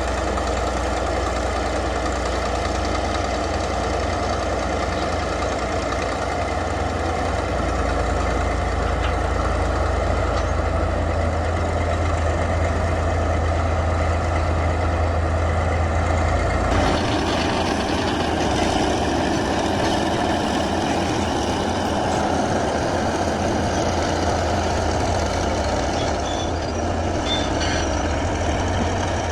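Komatsu D155A bulldozer's diesel engine running steadily. About two-thirds of the way through, the sound changes: the deep low rumble drops away and the middle of the sound grows stronger.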